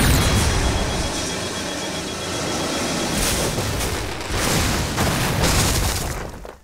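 Cartoon sound effect of an energy cannon firing: a sudden blast followed by a long, noisy explosion with a thin steady whine over the first few seconds, swelling again a couple of times before dying away near the end.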